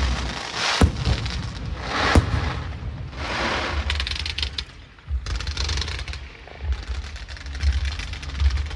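Fireworks going off: two sharp bangs, about a second in and again near two seconds, amid bursts of crackling, hissing stars and a steady low rumble of shells.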